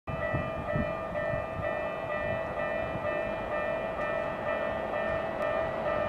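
Japanese level-crossing warning bell ringing, an electronic ding repeating about twice a second: the signal that a train is approaching the crossing.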